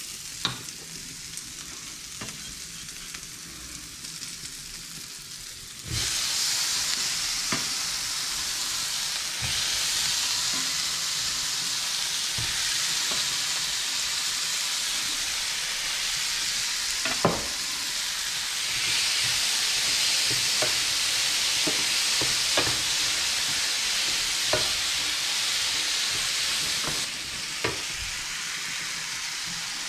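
Onion and garlic frying in olive oil in a pan, a steady sizzle. About six seconds in the sizzle suddenly gets much louder as the chopped tomatoes go into the hot pan. A few sharp knocks of a wooden spoon and utensils sound over it, and the sizzle eases a little near the end.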